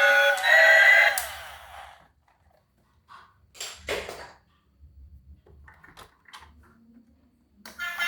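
An electronic tune of held, stepping tones cuts off about a second in and dies away. A few faint clicks and rustles follow, the clearest just before the midpoint. Then the tune starts up again near the end.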